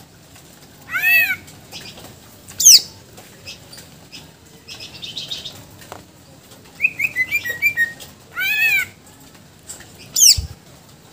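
Caged male greater green leafbird (cucak ijo) singing in loud separate phrases: arching whistled calls, steep falling whistles, a quick trill and a run of short notes, the varied mix of borrowed phrases the bird is kept for. A short dull thump near the end.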